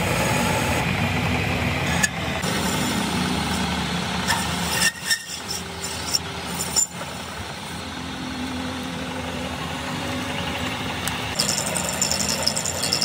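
Metal lathe running as a cutting tool turns down a steel axle shaft: a steady machine hum with cutting noise, a few sharp clicks in the middle, and a brighter rapid rattle near the end.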